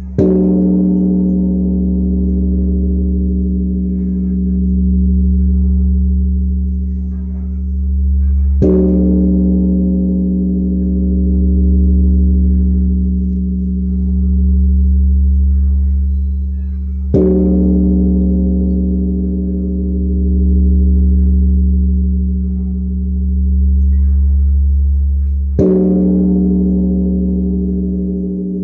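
Large Korean bronze Buddhist temple bell (beomjong) struck four times, about eight and a half seconds apart, with a wooden log striker. After each strike a deep humming ring carries on, slowly swelling and fading in pulses, until the next strike.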